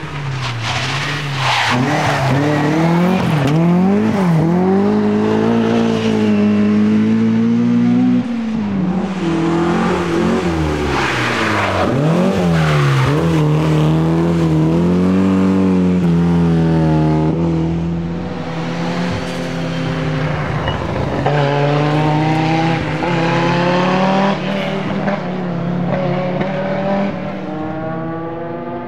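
Rally car engines driven hard at full race pace, revving up and dropping off again and again through gear changes and lifts, with tyre noise, as several cars run through the stage one after another.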